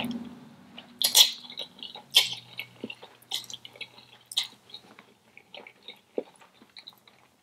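Close-up wet chewing and mouth smacks of someone eating spicy instant noodles. Sharper smacks come about once a second in the first half, then fainter clicks.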